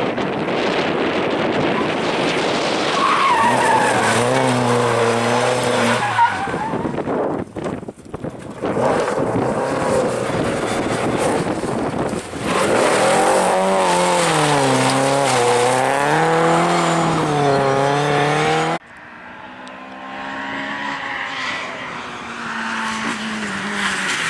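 Ford Escort Mk2 rally cars driven flat out one after another: engines revving hard and dropping back between gears and into corners, with tyres scrabbling over loose gravel.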